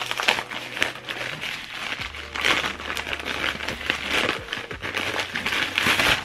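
A white mailing envelope being torn open by hand and handled, its material crinkling and rustling in a dense run of small crackles.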